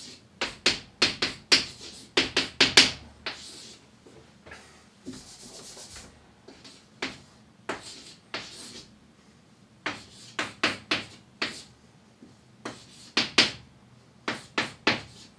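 Chalk writing on a chalkboard: quick runs of sharp taps and short strokes as symbols are written, with brief pauses between runs.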